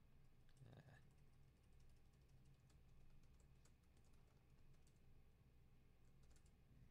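Faint, scattered key clicks of a Star LabTop Mk IV laptop keyboard as a sudo password is typed in.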